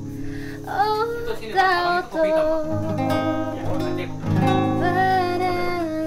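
A woman singing a slow melody with long held notes, accompanied by an acoustic guitar.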